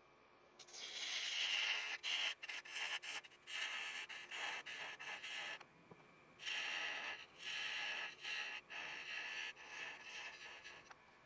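A hand-held turning tool cutting into the end of a wooden rolling pin spinning on a lathe. It scrapes in a run of short passes, starting about half a second in, with a break of about a second a little past halfway.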